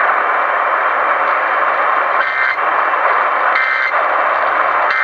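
AM radio static hissing steadily. Over it come the Emergency Alert System's end-of-message data bursts, short warbling digital tones about a second and a half apart: two complete, and a third just starting at the end. They signal the close of the alert.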